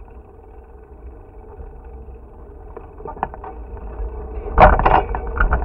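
Riding noise and wind on the microphone of a bicycle-mounted camera: a steady low rumble that builds, breaking into loud gusting about four and a half seconds in.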